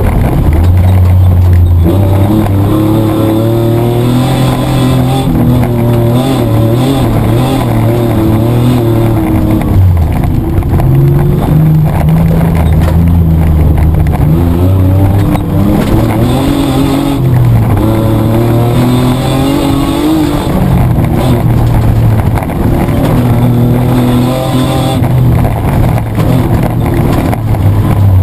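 Petrol engine of a Mitsubishi Triton 4WD driven hard in an off-road race, heard from inside the cab, its revs rising and falling again and again through the gears over constant rattle and gravel noise.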